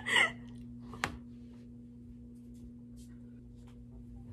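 Quiet room tone with a steady low electrical hum. A brief noisy sound at the very start and one sharp click about a second in.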